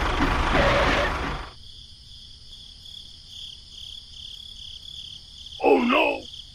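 A mini tractor's motor runs with a rough, noisy rumble, then cuts off abruptly about one and a half seconds in. A steady, pulsing high chirr remains. Near the end there is a short groaning voice.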